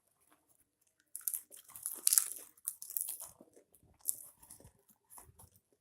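Popcorn being crunched and chewed, with irregular crisp crackles that start about a second in.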